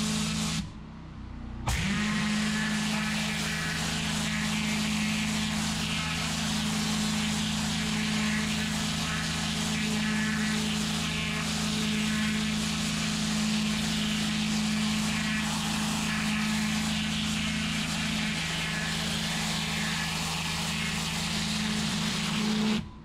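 Pressure-washer lance with a spinning turbo nozzle blasting block paving: a dense hissing spray over the steady hum of the machine. The sound cuts out briefly about a second in.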